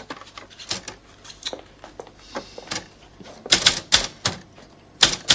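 Typewriter keys clacking in irregular runs of strokes, sparse at first, then louder and quicker from about three and a half seconds in.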